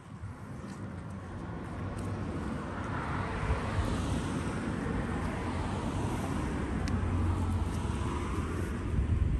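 Distant passing engine noise that builds over about four seconds and then holds steady.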